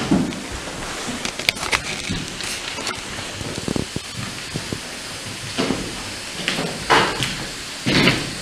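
A steady hiss of water escaping below the floor, which the explorers first feared was a gas leak and then took for a leaking water line flooding the basement. Scattered knocks, with a few louder thuds near the end.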